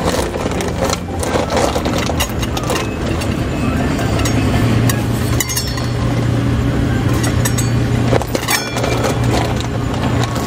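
A steady low mechanical hum that grows stronger about four seconds in, with scattered clicks and taps over it.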